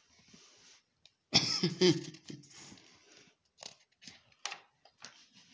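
A man's sudden loud throaty vocal burst about a second in, lasting about a second, followed by scattered soft rustles and clicks of paper being handled.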